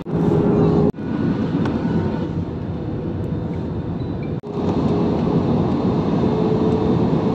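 Airliner cabin noise in flight: a steady rush of jet engines and airflow with a steady hum. It breaks off briefly about a second in and again after about four seconds, and is louder after the second break.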